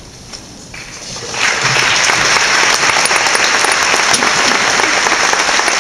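An audience applauding, the clapping starting about a second and a half in and quickly swelling to full, steady applause.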